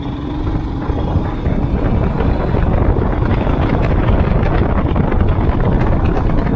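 Royal Enfield Himalayan single-cylinder motorcycle riding at speed, its engine heard under steady wind rush buffeting the microphone.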